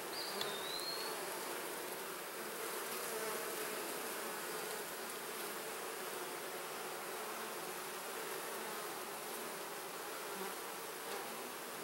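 Honeybees buzzing steadily from an open hive as a frame full of bees is held up; the hum of many bees together. A brief high chirp sounds just after the start.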